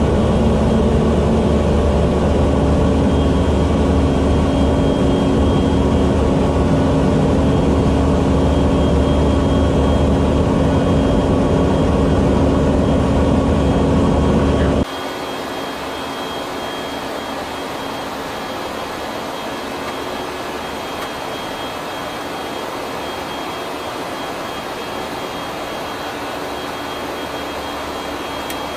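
Cabin noise aboard a KC-135 Stratotanker in flight: a loud, steady drone of its turbofan engines and airflow, a low rumble with steady hums. About halfway through it cuts abruptly to a quieter, hissier cabin noise with a thin, high, steady whine.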